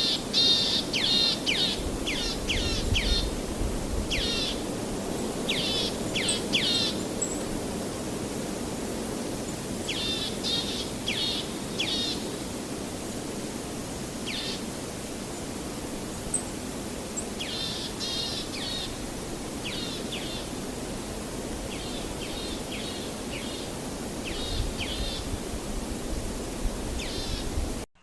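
A songbird calling in short runs of two to six quick, downward-slurred notes, repeated every few seconds, over a steady background hiss.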